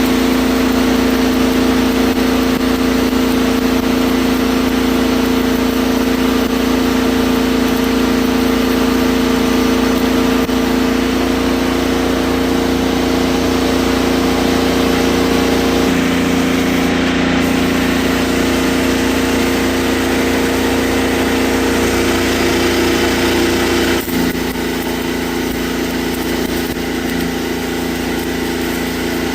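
Rebuilt diesel engine of a Mustang skid steer running steadily at idle; its note shifts slightly partway through and drops a little near the end.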